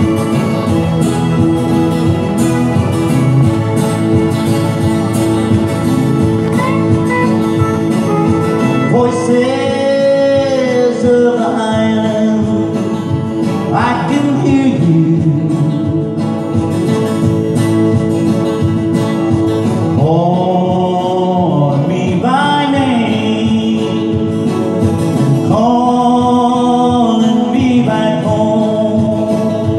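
A man singing a country song to his own acoustic guitar, strumming through the verse, amplified through a microphone and speaker.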